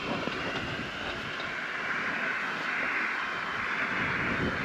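Gas burner of a portable Skotti cartridge grill running with a steady hiss.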